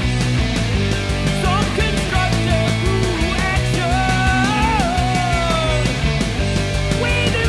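Rock music with a steady beat and a lead melody that slides up and down in pitch.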